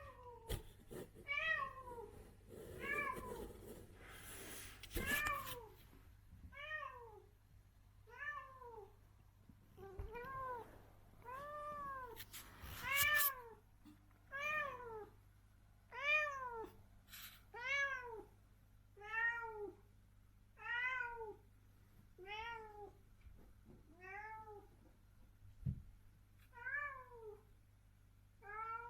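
Adult cat meowing over and over, about one meow every second and a half, each call rising and then falling in pitch. Some rustling noise under the first few meows.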